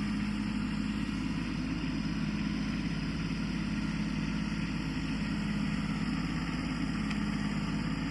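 Kubota compact tractor's diesel engine running at a steady speed, powering the backhoe.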